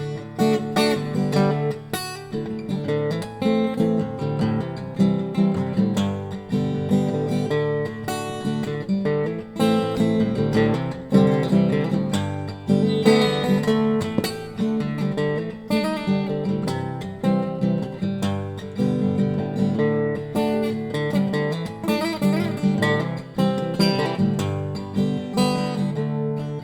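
Instrumental break in a song: guitar-led music with a steady rhythm of plucked and strummed notes, no singing.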